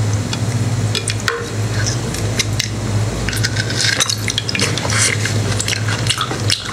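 Close-miked eating-show audio of fingers handling and pulling apart soft pieces of seafood: a busy run of small wet clicks, crackles and squishes over a steady low hum.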